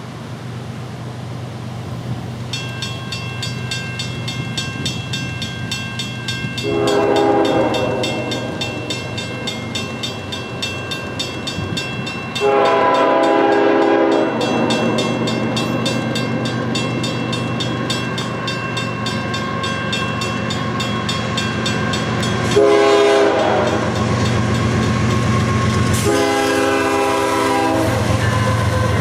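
Diesel freight locomotive approaching with its engine rumbling louder, sounding its air horn in two long blasts, a short one and a final long one. This is the North American grade-crossing signal.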